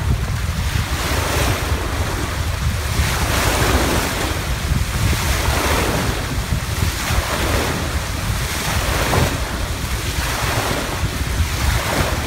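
Bow wave of a motor yacht under way, water rushing and splashing along the hull and swelling and easing about every two seconds, with wind buffeting the microphone.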